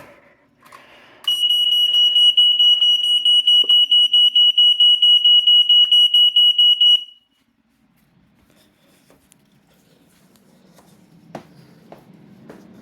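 Smoke alarm sounding its test alarm: a loud, high-pitched tone pulsing rapidly for about six seconds, starting about a second in and cutting off abruptly.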